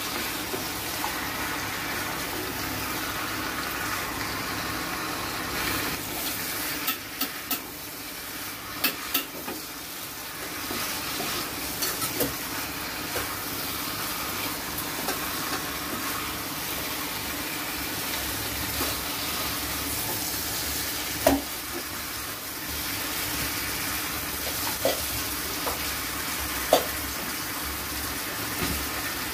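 Raw chicken pieces sizzling in hot oil with fried onions and spice paste in a kadai, stirred with a wooden spatula: a steady frying hiss with scattered sharp clicks and knocks. This is the start of kosha, the chicken frying in the masala.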